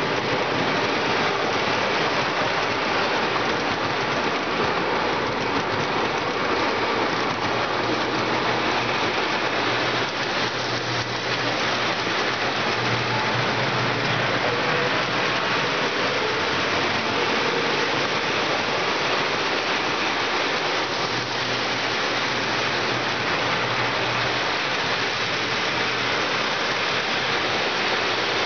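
O gauge toy trains running on three-rail steel track: a steady rushing roll of metal wheels and motors, with a low hum that comes and goes.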